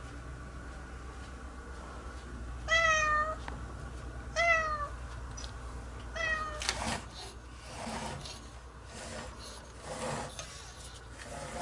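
A cat meowing three times, short calls that dip in pitch, about a second and a half apart, from a cat that wants to get outside. Several scraping, rustling noises follow after the third meow.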